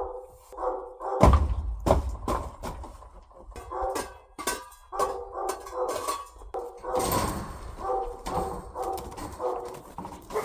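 Dogs barking and whining in many short calls, with a couple of low thuds.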